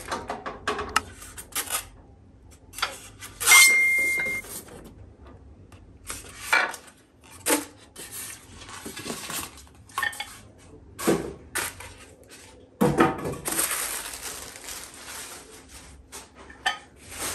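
Clinks and knocks of a new microwave's parts being unpacked and handled, among them its turntable plate, with a short high tone about four seconds in and a stretch of rustling later on.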